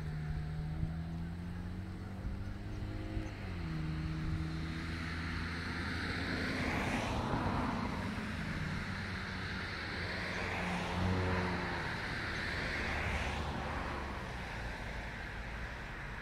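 A motor vehicle running, a steady low hum whose pitch dips briefly about three seconds in, with two louder rising-and-falling swells of noise about seven and thirteen seconds in. No peacock call is heard.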